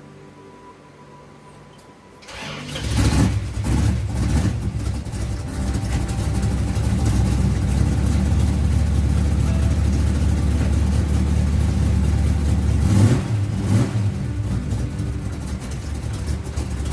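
1969 Dodge Charger hot rod's engine starting about two seconds in and revving briefly, then settling into a steady idle, with a couple of throttle blips near the end.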